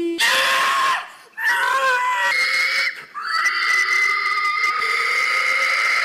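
A man giving a hog call into a microphone: shrill imitations of a pig's squeal, a few short ones and then one long held squeal from about three seconds in.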